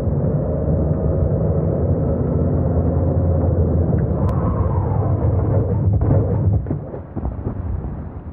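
A deep, sustained rumbling roar of a large explosion, easing off about seven seconds in into scattered crackles.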